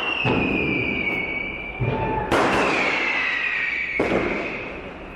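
Street fireworks: several sharp firecracker bangs, each followed by a long high whistle that slowly drops in pitch.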